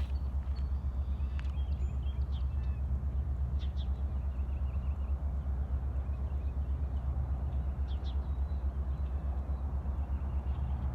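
A steady low mechanical hum with a fast pulse, like a running motor, with a few short bird chirps over it.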